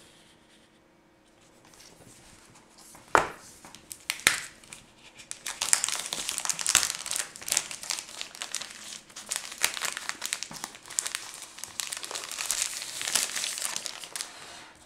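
Clear plastic shrink-wrap being torn and pulled off a small cardboard box. There are two sharp snaps about three and four seconds in, then dense crinkling that runs on to near the end.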